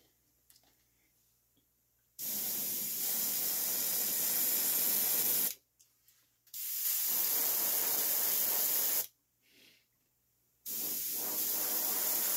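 Airbrush spraying paint in three hissing bursts of about three seconds each, the first starting about two seconds in, with short silent pauses between them.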